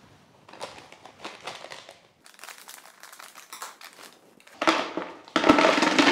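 Plastic bags of dried, chopped gentian root crinkling as they are handled and opened. About four and a half seconds in, the dried root pieces are tipped into a plastic bucket, a louder rattling rustle.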